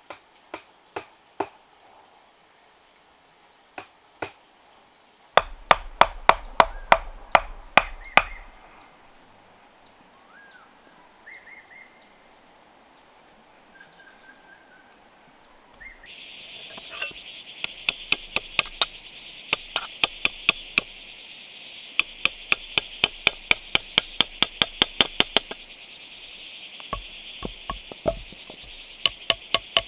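Hammering: runs of sharp, evenly paced strikes, about three to four a second, in two bursts with a few scattered knocks between them. A steady high buzz of insects sets in about halfway through and runs on under the second burst.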